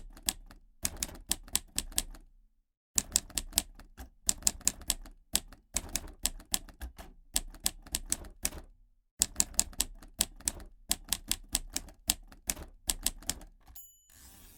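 Old manual typewriter being typed on: runs of fast, sharp key strikes in bursts, with short pauses between them. Near the end the margin bell rings once and the carriage is swept back with a rasping slide.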